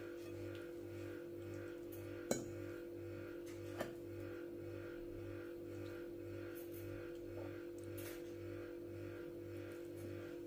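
Quiet background music with a steady drone and a soft beat about twice a second. A few sharp clinks of a metal fork and knife on a glass bowl come through, the loudest about two seconds in.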